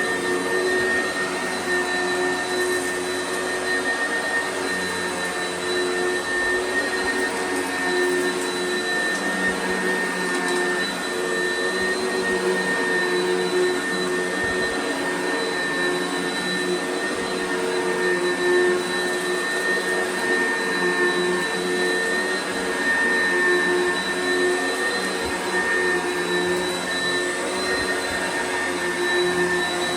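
Oreck XL commercial upright vacuum cleaner running steadily over carpet, a constant motor whine with a high steady tone.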